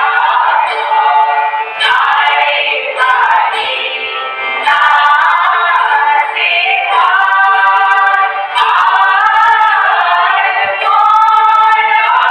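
A choir of mostly female voices sings an Assamese Borgeet in unison, devotional style, in Raag Shree Gauri. Under the voices a harmonium holds a steady drone, and a khol drum keeps the beat in short sharp strokes.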